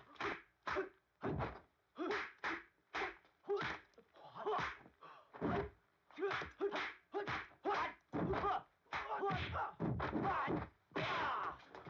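Dubbed kung fu film fight sound effects: a rapid run of punch and block impacts, about two to three a second with uneven gaps. A few short yells from the fighters are mixed in.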